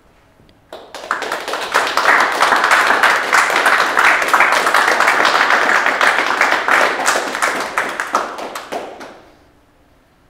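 A small audience applauding with dense hand claps, swelling in about a second in and dying away near the end.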